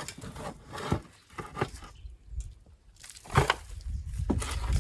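Handling sounds of potatoes being planted in a soil-filled tub: scattered short knocks and scrapes, with a low rumble in the last second or so.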